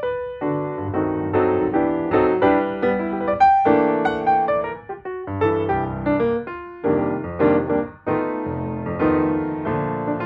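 Gentle background piano music, a sequence of sustained notes and chords.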